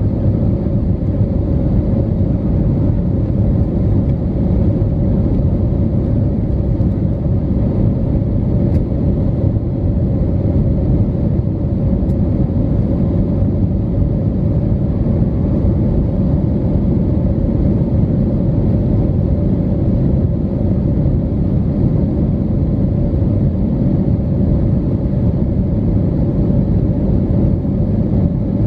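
Steady cabin drone of an Airbus A320neo in flight, heard from a window seat over the wing: engine and airflow noise that is loud and low, with a steady hum running through it.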